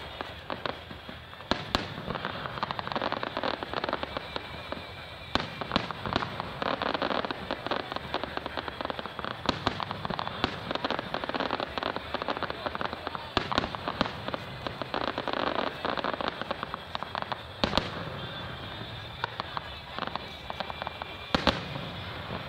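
Fireworks display: a dense, continuous crackle of many small pops from bursting stars. Several sharper, louder bangs stand out, one about a second and a half in, one about five seconds in, one near 18 seconds and one near the end.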